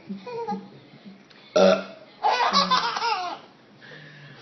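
A woman's deliberate fake burp, loud and short, about a second and a half in, followed by a baby laughing in high, squealing giggles for about a second.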